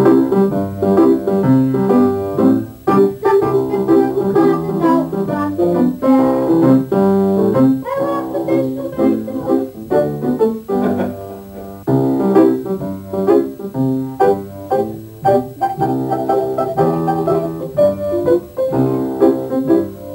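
Upright piano playing a run of chords and melody notes without a break.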